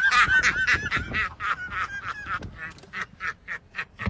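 A man's high-pitched cackling laughter, a rapid string of short bursts several a second, fading toward the end into fainter breathy gasps.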